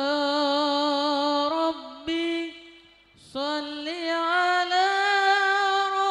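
A young male voice singing an Arabic devotional song unaccompanied through a microphone, in long held notes with wavering ornaments. It breaks off about two seconds in and picks up again about a second later.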